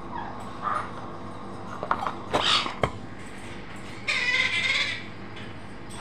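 White cockatoo giving a harsh squawk of almost a second about four seconds in, after a shorter rasping call and a few sharp clicks near the middle.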